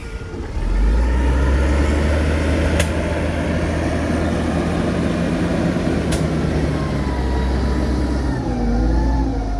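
Heavy diesel engine of earthmoving machinery running loudly, with a low drone that rises about a second in. Two sharp clicks cut through it, and a wavering whine comes near the end.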